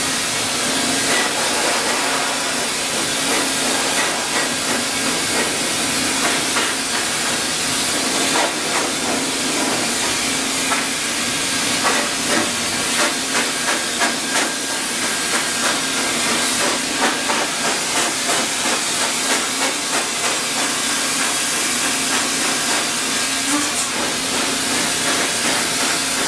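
High-velocity force dryer blowing a steady, loud hiss of air through its hose nozzle into a standard poodle's coat, with a faint motor hum beneath.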